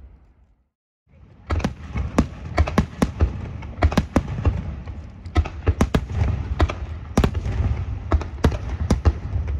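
Aerial fireworks going off: many sharp bangs and crackles, several a second, over a continuous low rumble. They start after a brief silence about a second in.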